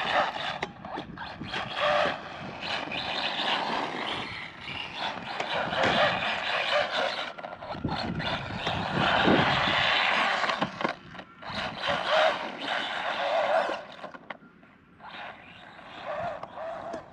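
Arrma Mojave Grom BLX RC truck driven on dirt and grass: its brushless motor whines, rising and falling with the throttle, and the tyres scrabble over the ground. It grows fainter near the end.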